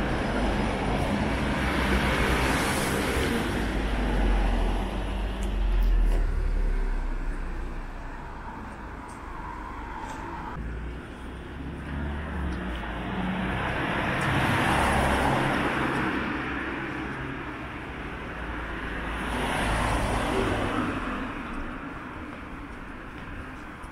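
Street traffic: several cars pass one after another, each a swell of engine and tyre noise that rises and fades.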